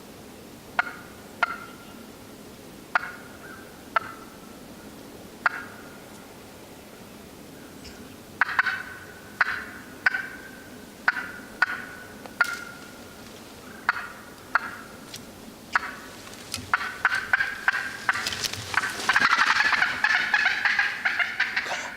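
Wild turkey calling: sharp single notes a second or so apart, coming closer together as it goes on, then a loud, rapid run of notes over the last few seconds.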